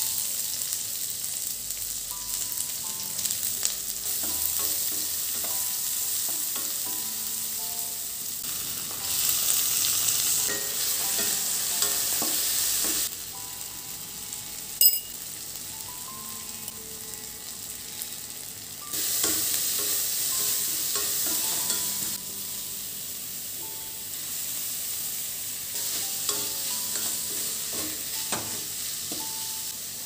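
Onions and tomatoes sizzling in hot oil in a stainless steel kadai and being stirred with a wooden spatula, the sizzle louder in several stretches. A single sharp click about halfway through.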